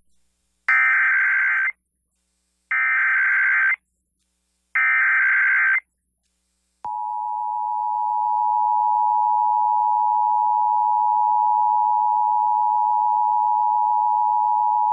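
Emergency Alert System broadcast header: three one-second bursts of digital data tones (the SAME header, sent three times), then after a second's pause the steady two-tone EAS attention signal for about eight seconds, opening a Required Monthly Test.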